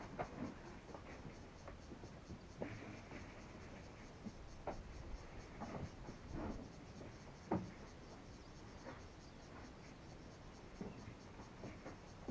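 Faint scratching and scattered light knocks close to the microphone, with a few sharper clicks, over a quiet outdoor background.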